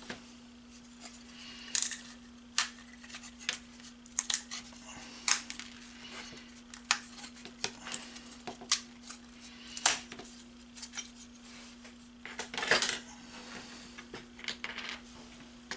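Small precut motor-mount parts being pushed out of their sheet and handled on a tabletop: irregular sharp clicks, snaps and light clatters, a few louder ones among them.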